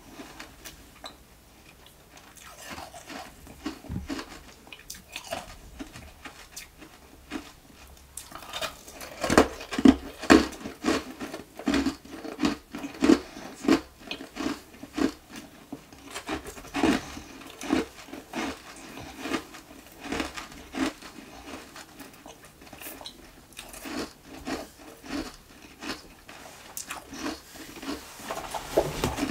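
Nugget ice being bitten and crunched between the teeth close to the microphone. Softer, scattered crunches come first, then loud, rapid crunching from about nine seconds in, roughly two bites a second.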